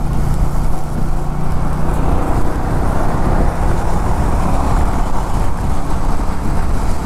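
Royal Enfield Meteor 350's single-cylinder engine running steadily at road speed under heavy wind and road noise.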